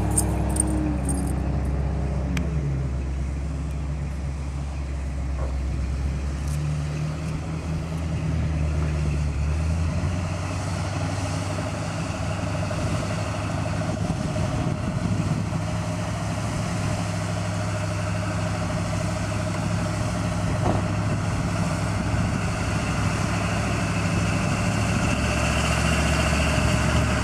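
Off-road vehicle's engine running steadily at low revs while crawling, its pitch shifting a little now and then.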